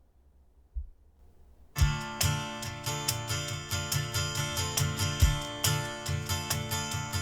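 Song with strummed guitar and heavy bass played back through an Arcano SHP300 speaker, starting abruptly about two seconds in after near silence and a single low thump.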